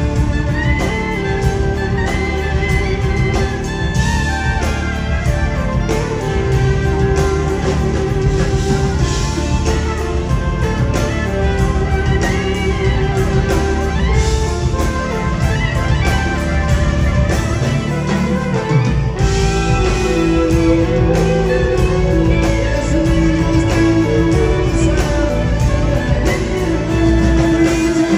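Live rock band playing an instrumental passage: held electric guitar lead lines over bass and drums, heard from the audience in a concert hall. The lowest bass drops out briefly about two-thirds of the way through, then returns.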